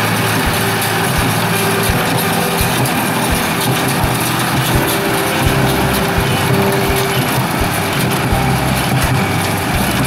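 Tractor engine running steadily while driving a small square baler, with the baler's mechanism clattering and knocking repeatedly as it picks up hay.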